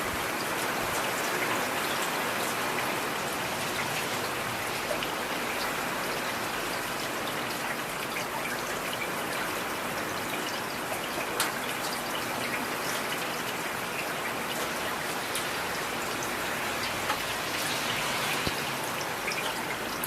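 Heavy rain falling steadily: a dense, even hiss with scattered sharper drop ticks, one standing out about eleven seconds in.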